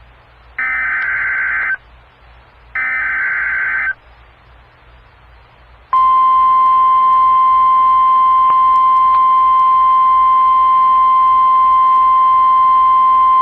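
Emergency Alert System signal on NOAA Weather Radio: two screechy SAME digital header bursts, each about a second long and a second apart, mark the start of a severe thunderstorm watch alert. About two seconds later the steady single-pitch 1050 Hz weather radio warning alarm tone starts and holds.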